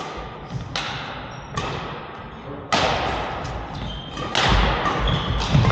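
A badminton rally: sharp racket strikes on the shuttlecock, roughly one a second, each echoing briefly, with thuds of footwork and short squeaks in between.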